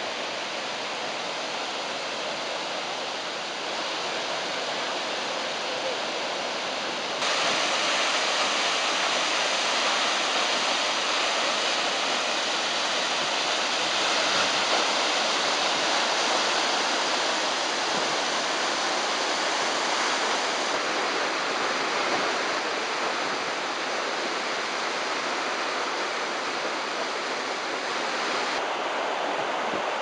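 Skógafoss, a 60 m waterfall, making a loud, steady rush of falling water. The sound jumps louder about seven seconds in. Near the end it changes to the rush of the river's rapids above the falls.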